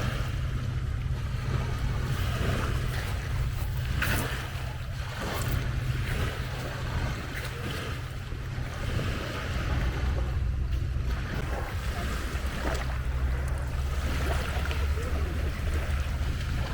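Small lake waves washing onto the shore, swelling and fading every few seconds, with a steady low rumble of wind on the microphone.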